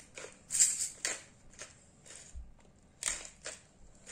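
Hand-twisted pepper mill grinding in a run of short gritty strokes, one for each twist of the top, about two a second, with a pause midway.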